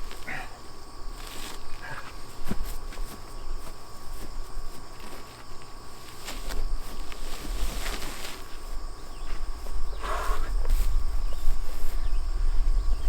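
Footsteps and scraping handling noises with a few short strained grunts, as a heavy cut tree limb is shifted by hand; no chainsaw running.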